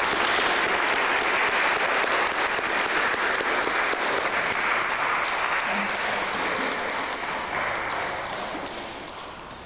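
A crowd applauding, dense and steady, dying away over the last couple of seconds.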